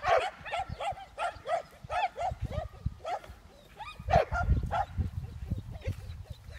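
Search-and-rescue dog giving rapid, high-pitched yelping and whining cries, about three a second, the excited noise of a working dog straining on the leash before a search. A low rumble comes in about four seconds in.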